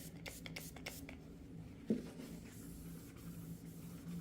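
A rag rubbing the edges of a socket set case in quick strokes, wiping off oil residue with alcohol. There is one short knock about two seconds in, followed by softer rubbing.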